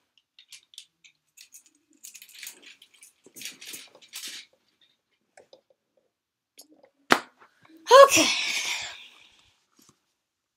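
Handling noise: scattered light clicks and rustles, a sharp knock about seven seconds in, then a short loud burst with a pitch that rises and falls a second later.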